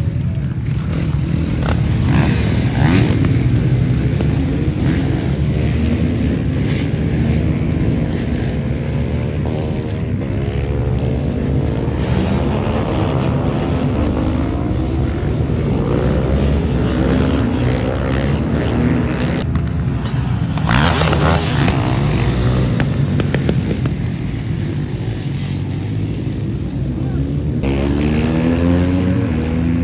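Supermoto motorcycle engines running at a racetrack, their pitch rising and falling as the bikes rev and shift, with a brief louder rush about twenty seconds in.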